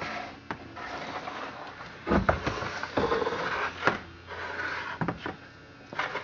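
A heavy vintage Homelite 3100G chainsaw being handled and turned around on a metal-topped workbench. Several knocks and scrapes, the loudest a heavy thud about two seconds in.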